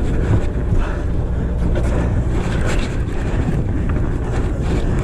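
Steady low drone of a sportfishing boat's engine, with wind rushing over the microphone.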